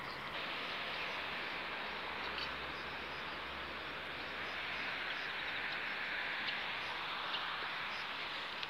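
Steady rushing running noise of a train on the move, heard from on board, with a few faint clicks.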